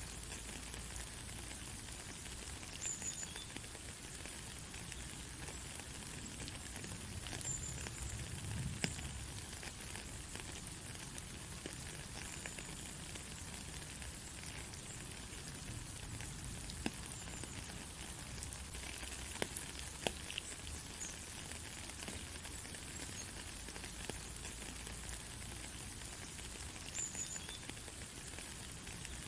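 Steady rain falling on a country road: an even hiss with scattered individual drops ticking, and a soft low swell about eight seconds in.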